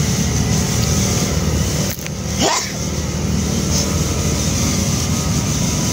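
Steady low engine-like rumble, with a sudden dip about two seconds in and one short rising squeal just after it.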